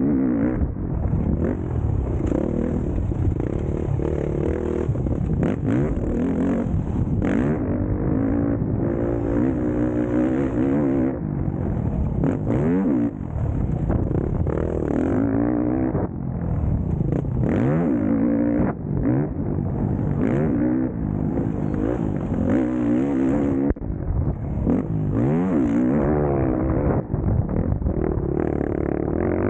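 Motocross bike engine revving hard on a dirt track, its pitch climbing and dropping again and again as the rider accelerates, shifts and backs off for corners.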